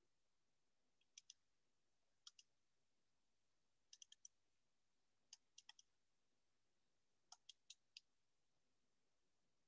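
Faint computer mouse clicks in quick pairs and fours, like double-clicks, coming in five groups about a second or so apart.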